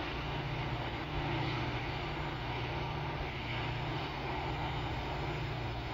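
Distant diesel locomotives of a Norfolk Southern freight train running, a steady low engine drone with no sudden sounds.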